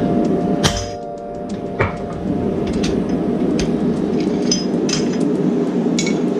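Hammer blows on steel: about eight irregular, ringing metallic strikes roughly a second apart, over a steady low background sound.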